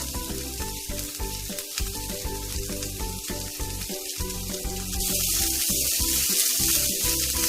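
Food sizzling in a frying pan over background music. About five seconds in, a louder steady rush of water running into a sink starts.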